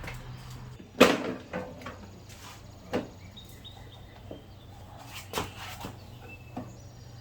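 A series of sharp knocks and clicks from hands handling tools and parts on a generator, the loudest about a second in, over a low steady hum.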